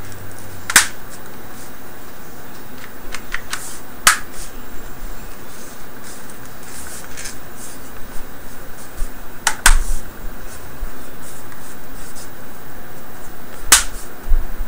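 Plastic clips of a Dell Inspiron E1505 LCD bezel snapping into place, heard as sharp clicks every few seconds with a few fainter ones between, over a steady hiss.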